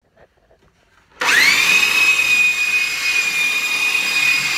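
Electric belt sander switched on about a second in: its motor spins up quickly to a steady high whine and keeps running.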